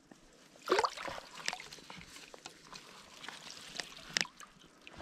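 Shallow river water splashing and dripping around a wading angler's legs and a rubber landing net, in irregular bursts, with two louder splashes, one about a second in and one near the end.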